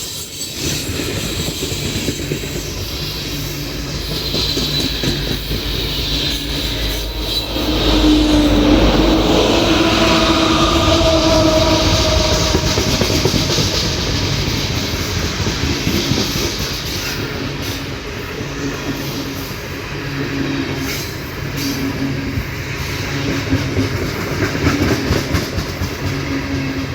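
Heavy Ferromex freight train's cars rolling past, with a steady rumble and wheels clacking over rail joints. It gets louder about eight seconds in, with some brief wheel squeal.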